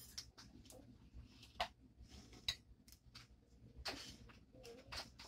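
Faint swallowing and mouth clicks as a drink is gulped from a plastic bottle: a few short, sharp clicks spaced out over several seconds.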